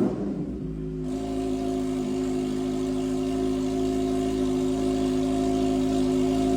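Motorcycle engine running through its exhaust. A rev falls away at the start, then the engine holds a steady speed with an even, unchanging note.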